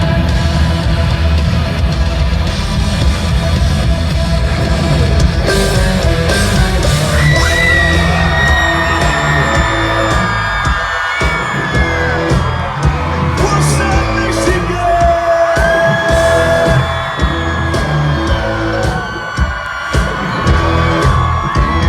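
A live country-rock band playing loudly through a concert PA, with the crowd yelling and cheering.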